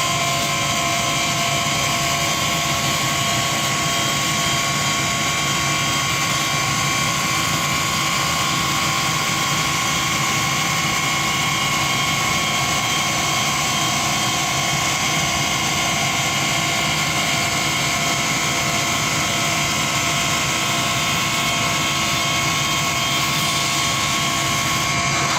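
CNC wood lathe running steadily: a continuous machine hum with several steady whining tones above it, unchanging throughout.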